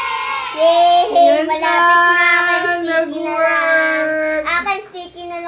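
Singing in a high voice, drawing out long held notes, then breaking into shorter notes near the end.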